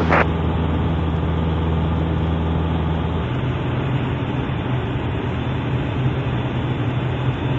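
Piper Super Cub's piston engine and propeller running steadily in flight, with rushing airflow. About three seconds in, the engine note shifts to a different steady pitch.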